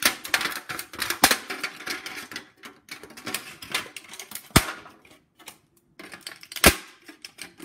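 Scissors cutting a clear, thin rigid plastic cookie container: a noisy run of crackling and clicking as the plastic splits, broken by three loud sharp snaps, about a second in, just past the middle, and near the end.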